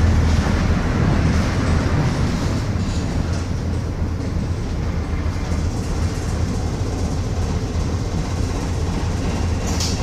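Bristol RE single-decker bus's rear-mounted diesel engine running with the bus under way: a loud low drone that eases a little after the first second. A brief high hiss comes near the end.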